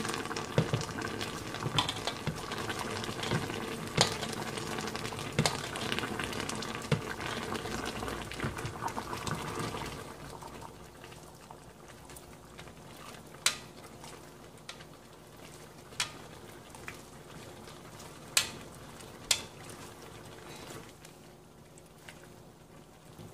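Fish pieces simmering and bubbling in a pan, with a spoon clinking and scraping in the pan for the first ten seconds or so. After that it grows quieter, and a few sharp clicks stand out.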